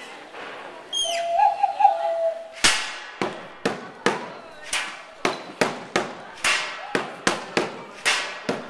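Improvised junk percussion: sharp hits on pots, pans, buckets and a metal dish, each with a short metallic ring, about two a second, starting about two and a half seconds in. Before the hits come a few short whistled, bird-like calls with a wavering held tone.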